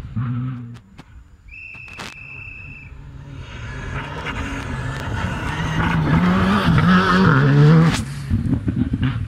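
A rally car approaches at speed on a gravel stage, its engine rising and falling in pitch through gear changes, and passes close by at high revs about six to eight seconds in, with a sharp hit of flung gravel as it goes. Before it, the tail end of the previous car's pass is heard at the start, and a single high steady tone sounds for about a second and a half.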